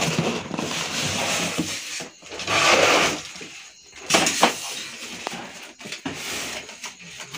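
Cardboard carton and foam packing being handled as a boxed printer is lifted out: rustling and scraping, with a louder scrape about two and a half seconds in and a few light knocks after.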